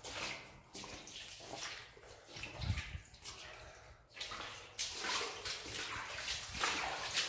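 Footsteps wading and splashing through shallow water on a flooded tunnel floor, one splash every half second or so, louder in the second half.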